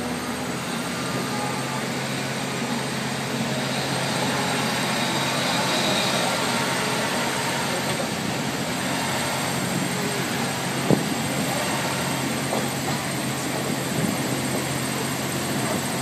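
Passenger train pulling out and running, heard from inside a car: a steady low hum under even wheel and air noise that grows a little over the first few seconds. There is one sharp knock about eleven seconds in.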